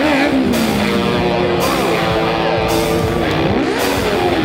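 Rock music with a steady beat, its high, bright hits coming about once a second.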